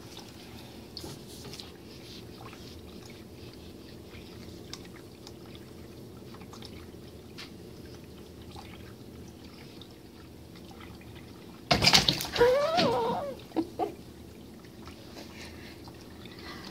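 Frog-spout cat water fountain running: a thin stream trickling steadily into the bowl over the low, steady hum of its small pump. About two-thirds of the way through, a short, loud wavering call cuts in for under two seconds.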